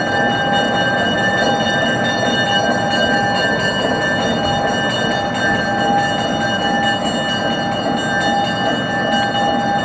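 MLW S3 switcher locomotive's six-cylinder ALCO 539 diesel engine running as the locomotive rolls slowly across a street crossing, with a steady whine held over the engine noise.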